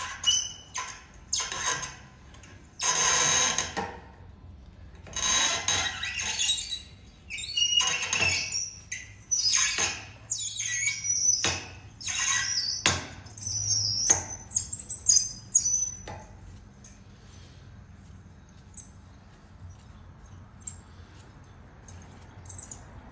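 A broken steel bolt being wiggled back and forth with locking pliers out of the heat-loosened threads of a Honda CT70 handlebar. The metal squeals and grates in a series of irregular strokes, which give way to a few light clicks near the end as it comes free.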